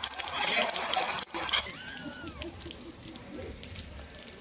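Heavy rain pouring down, loudest in the first second, with a short high gliding call about two seconds in.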